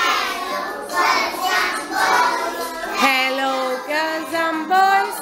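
A group of young children singing a song together, with longer held notes in the second half.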